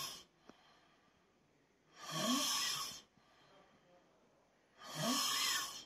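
A sleeping man snoring with his mouth open: two full snores about three seconds apart, each about a second long, rising in pitch, with the end of another at the start.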